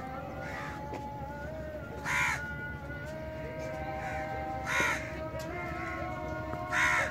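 Crows cawing: three loud caws spaced a little over two seconds apart, with fainter caws in between, over a steady background hum.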